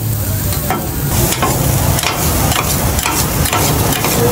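Food frying and sizzling, stirred or scraped with quick repeated strokes about three a second.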